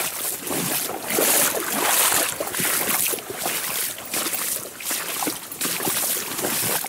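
Tall reed stems rustling and scraping along the sides of a small boat as it pushes through a narrow, overgrown reed channel. The noise comes in irregular surges, about one or two a second.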